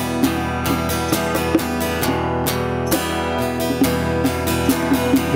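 Acoustic guitar strummed in a steady rhythm, an instrumental passage of a live folk song with no singing.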